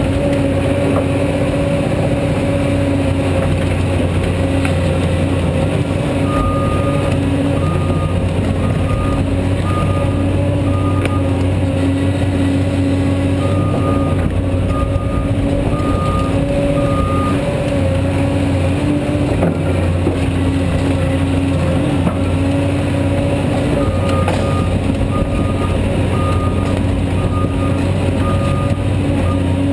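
Caterpillar 345D hydraulic excavator running steadily while digging, diesel engine and hydraulics giving a steady drone with a constant whine. A backup alarm beeps in three or four spells of regular beeps.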